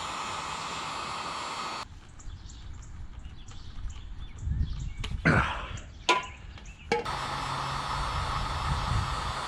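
Heat gun blowing steadily with a motor hum, switched off about two seconds in. Then handling noise with a few sharp knocks and scrapes, before the heat gun starts again suddenly at about seven seconds.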